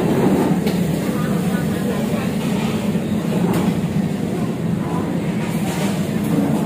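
Steady low droning ambience of an indoor food court, with faint distant voices.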